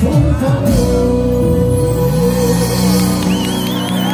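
Live band with electric guitars, bass, congas and accordion holding a final chord after the drums stop, the held notes ringing on. A high wavering tone comes in near the end.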